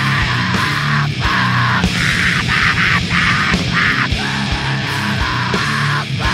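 Loud heavy rock music: a dense wall of distorted guitar over changing bass notes and a steady drum beat.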